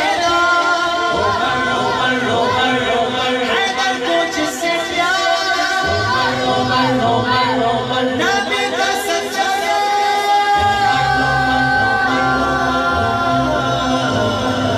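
Men singing a naat unaccompanied into microphones: a lead voice in long, ornamented, held lines, with low sustained backing voices coming in about six seconds in and again a few seconds later.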